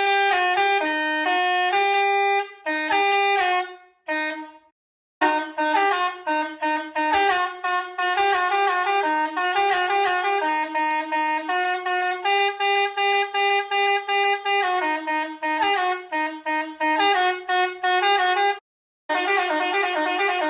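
Hi-do Melody multi-tone air horn playing a tune of quick stepped notes, often two notes sounding together. It stops briefly twice, about four seconds in and again near the end, before playing on.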